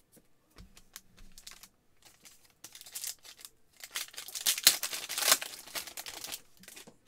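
Hands handling trading cards with light clicks and rustling, then a foil trading card pack wrapper crinkling and tearing as it is ripped open, loudest just past the middle.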